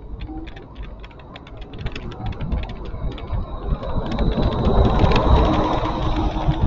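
Street-riding noise picked up by a handlebar-mounted camera: a low road rumble with fast, irregular clicking rattles. About four seconds in, a louder rush of traffic and road noise swells up, with a faint steady high whine.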